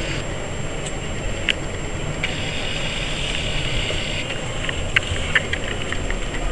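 Steady background din of a crowded exhibition hall, with a few sharp clicks and knocks, the loudest about five seconds in.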